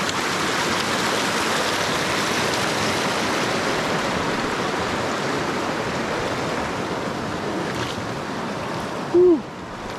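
River water rushing steadily. Near the end a short voice sound briefly stands out over it.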